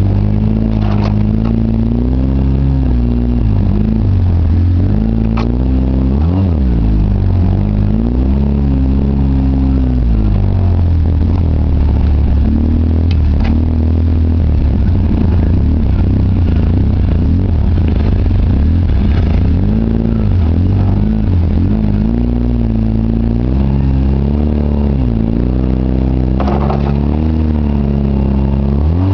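2009 Polaris Ranger RZR 800's twin-cylinder engine running under way, its pitch rising and falling again and again as the throttle is worked, with a few sharp knocks along the way.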